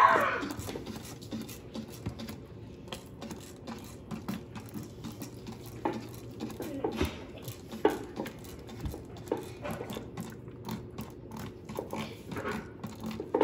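Maltese puppy whining during a bath, with a loud cry falling in pitch at the very start and softer whines later on. Small clicks and dribbles of water in the sink run underneath.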